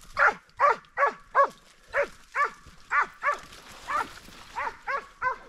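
Hunting dog barking over and over in short yelping barks, each dropping in pitch, about two a second. It is trail-barking while tracking a wounded wild boar through the scrub.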